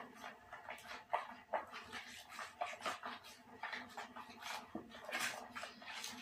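A hand stirring and kneading mashed Spanish mackerel skin paste with garlic in a plastic basin, making irregular wet squishing and scraping strokes, several a second.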